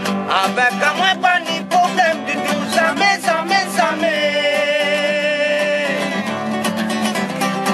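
A man singing a Mauritian folk song to his own strummed acoustic guitar, holding one long note about halfway through.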